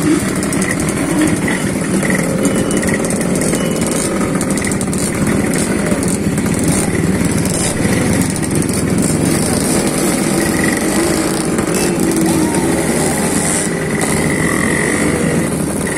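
Several Suzuki RGSVX underbone motorcycle engines running and passing at low speed, their revs rising and falling.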